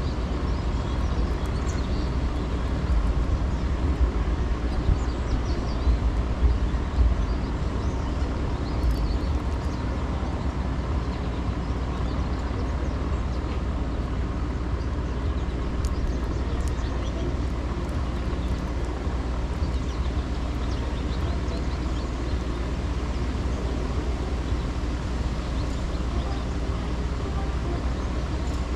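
Wind buffeting the microphone in gusts, strongest a few seconds in, over a steady outdoor hum of city traffic.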